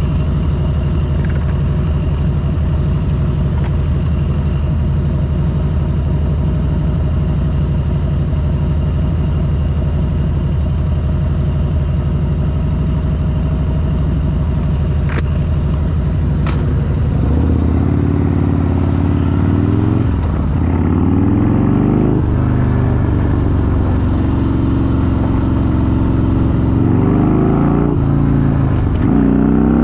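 Harley-Davidson motorcycle's V-twin engine idling steadily, then pulling away a little past halfway and revving up, with the pitch dropping at each gear change as it shifts up several times.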